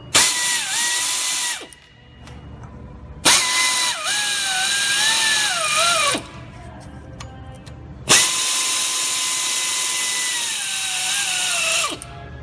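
Air ratchet running down the water pump pulley bolts in three runs, the longest about four seconds: a steady whine over a hiss of exhaust air. The whine sags in pitch near the end of the later runs as each bolt snugs up.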